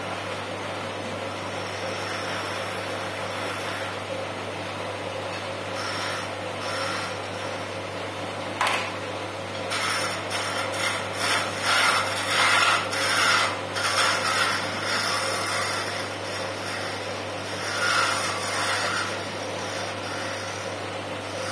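Wood lathe running with a steady hum while a hand-held turning tool cuts a spinning spindle of pale wood. The cutting comes as uneven scraping bursts, sparse at first, loudest and densest through the middle, with one more short run a little later.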